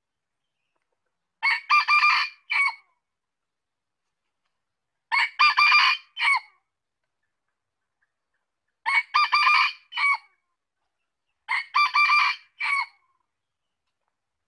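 Red junglefowl rooster crowing four times, roughly every three and a half seconds. Each crow is a short, broken call of about a second that ends in a separate clipped final note, with silence between crows.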